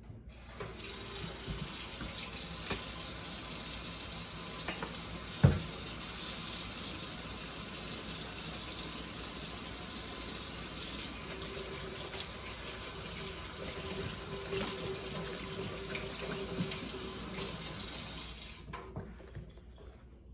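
Water tap running into a sink as hands are washed. It turns on just after the start and is shut off near the end, with one short knock about five and a half seconds in.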